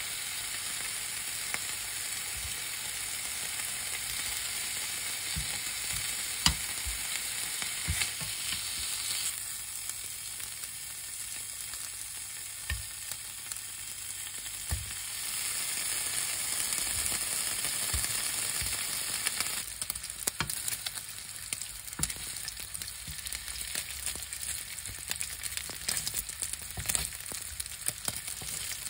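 Pork belly slices sizzling in a frying pan, with scattered clicks of tongs and scissors against the pan. In the second half the frying turns to denser crackling and popping as the fat renders and the meat browns.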